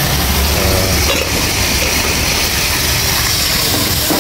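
Hot oil and garlic sizzling in a wok over a steady low rumble, with a seasoning poured in and a metal ladle stirring near the end.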